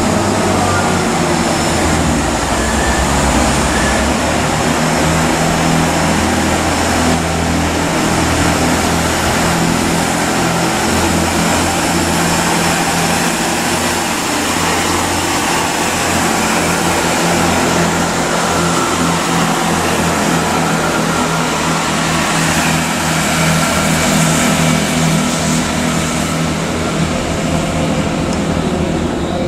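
Class 166 diesel multiple units running through the station, their underfloor diesel engines giving a loud, steady throb with a low engine note throughout.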